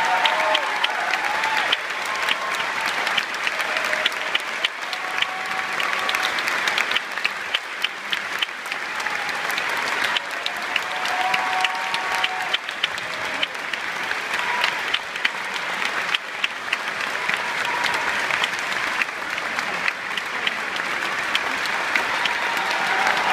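Theatre audience applauding steadily, a dense crackle of many hands clapping that grows louder over the second half.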